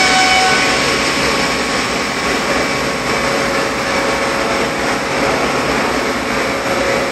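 Crawler crane's diesel engine running steadily as it holds and moves a heavy heat exchanger shell on the hook. A steady pitched tone stops about half a second in.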